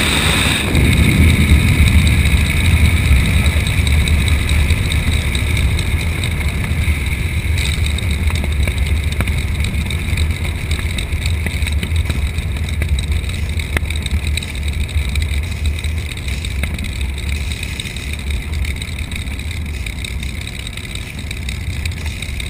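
Spitfire's Rolls-Royce V12 engine running at low power as the aircraft taxis, heard from inside the cockpit as a steady deep rumble that slowly grows quieter.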